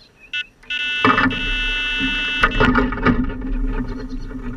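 Carp-fishing electronic bite alarm giving a single beep, then sounding one continuous tone as a fish runs with the bait, a full-blown take. Under and after the tone, line rattles off the reel, fading near the end.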